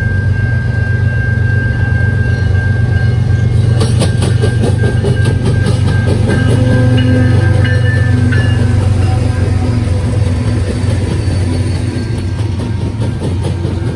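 BNSF freight train led by GE diesel locomotives passing close by: the engines' deep, steady rumble, with wheels clicking over rail joints from about four seconds in.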